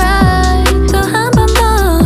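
Background pop music with a steady beat and sliding bass notes, with a high melody line over it.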